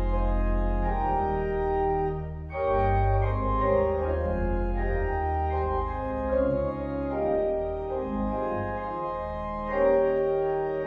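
Organ playing a hymn tune in held chords, with a short break between phrases about two and a half seconds in.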